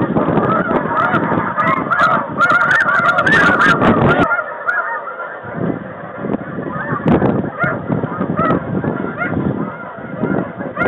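A flock of snow geese calling: a dense chorus of overlapping high, yelping honks. About four seconds in, the sound cuts to sparser calling over a low rumble.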